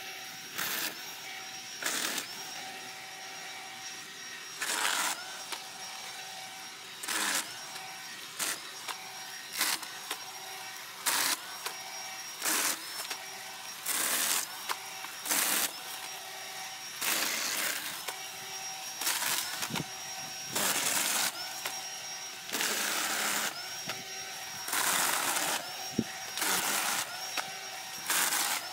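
Worx 20V Jawsaw, a cordless clamp-jaw chainsaw, cutting through small dead branches one after another. A steady motor whine is broken by more than a dozen short, louder bursts as the chain bites through each branch.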